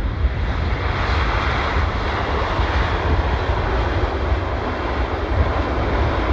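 Boeing 777 airliner's twin jet engines running as it rolls along the runway: a steady, loud engine noise over a low rumble, getting a little brighter about a second in.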